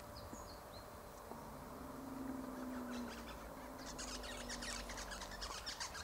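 Parrots calling in quick, high, repeated chatter, faint and building from about halfway through, with a few brief chirps near the start. A faint low drone sits underneath.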